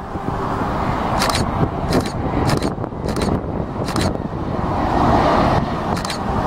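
Jet engine noise from an Airbus A320 on final approach, a steady rumble with a rushing roar that grows louder about five seconds in. Several short high-pitched chirps cut through it.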